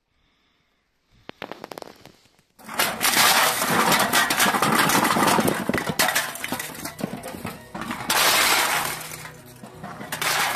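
Empty aluminium drink cans being tipped out onto a pile, clattering and clinking together in a dense, loud rush that starts about two and a half seconds in after a few scattered clinks, and surges again twice near the end.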